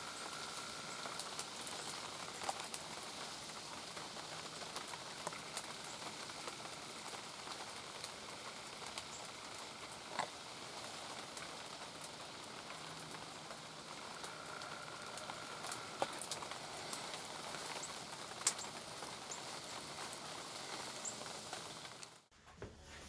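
Steady rain falling, a soft even patter with scattered sharper drop ticks; it cuts off suddenly near the end.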